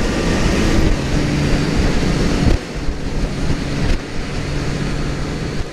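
A 2014 Triumph Street Triple R's 675 cc inline-three engine running steadily under way at road speed, with heavy wind noise over the helmet microphone. The sound drops a little in level about two and a half seconds in.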